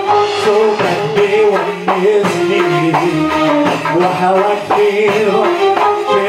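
Arabic-style music from a small live band: a winding, sliding melody over a steady hand-drum beat, with keyboard and darbuka.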